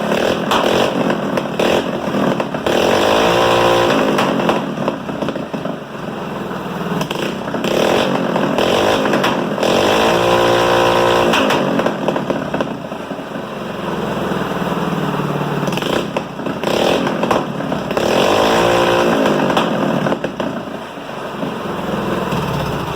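Drift kart's small engine running loud through a newly fitted exhaust header. It is revved up and back down three times.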